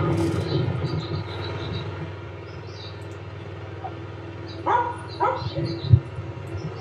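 Petrol lawnmower engine running steadily, easing down after the first couple of seconds, with birds chirping. A dog barks twice about five seconds in, followed by a short thump.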